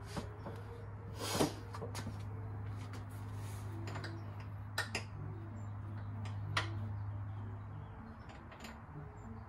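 A handful of scattered metallic clicks and knocks from a hand tool working the Tesla Model 3's front door hinge bolts as they are loosened, over a steady low hum.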